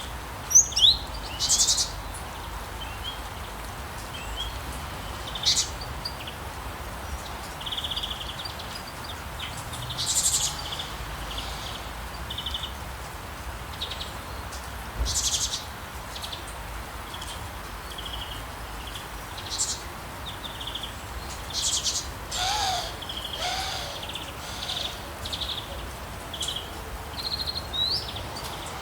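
Songbirds chirping and trilling, one short call after another, over a steady hiss of light rain. About two-thirds of the way through, a lower-pitched call comes in among the chirps.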